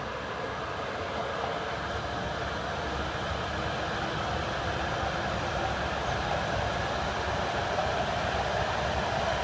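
Shinkansen bullet train pulling out of the station and gathering speed: a steady running noise that grows gradually louder, with a tone that strengthens and rises slightly near the end.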